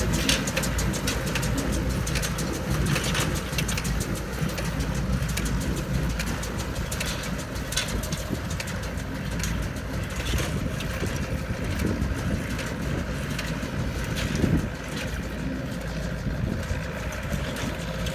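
Massey Ferguson 675 tractor's four-cylinder diesel running steadily under load, pulling an International 440 small square baler, with the baler's mechanism giving repeated irregular clicks and knocks.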